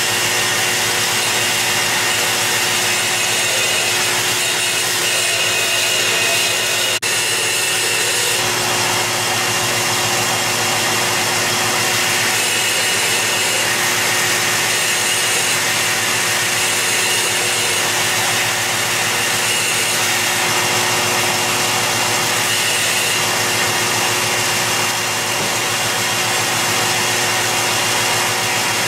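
Belt grinder running steadily while the hardened steel adze blade is held against the belt over the contact wheel, the fine finish grind after heat treating. There is one brief click about seven seconds in.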